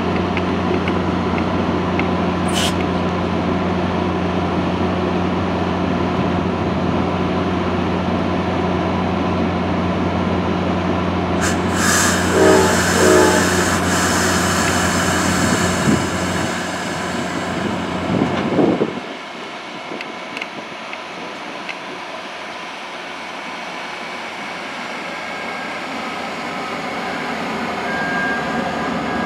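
Virginia Railway Express commuter train pulling out. A steady low hum runs under the first part, with a loud hiss and a few short pitched blasts about twelve seconds in and a rising whine a few seconds later. The hum then drops away, leaving the rumble and clatter of the stainless bilevel coaches rolling past on the rails.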